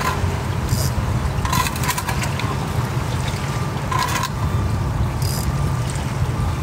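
A steady low rumble like a motor or wind on the microphone, with a few short scrapes and clicks of gear being handled every second or so.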